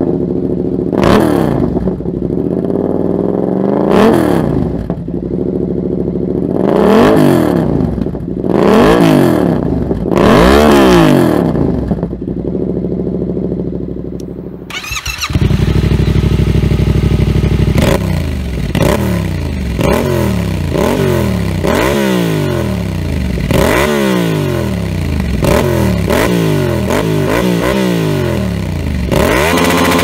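Yamaha MT-07 parallel-twin engine through an SC Project aftermarket exhaust, revved repeatedly from idle, the revs rising and falling back every couple of seconds. About halfway through, the sound cuts to a second MT-07 with an SC Project Black Edition silencer: it idles, then gets quicker, sharper throttle blips about once a second.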